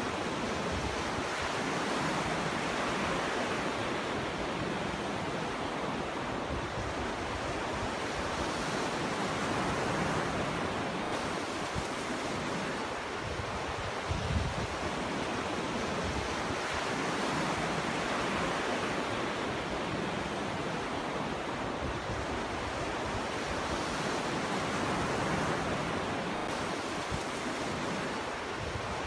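Ocean surf washing onto a beach: a continuous rushing wash that swells and eases every several seconds as waves break and run up the shore. A brief low thump comes about halfway through.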